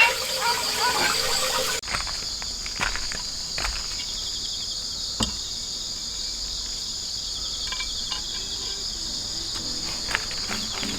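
A steady, high-pitched chorus of insects singing outdoors, with a few faint clicks. A different, louder sound cuts off abruptly about two seconds in, leaving the insect chorus on its own.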